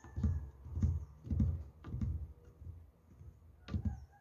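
Soft, deep thumps with light clicks from a close microphone being handled against a bunch of bananas. There are four, about one every half second, then a pause, then two more close together near the end.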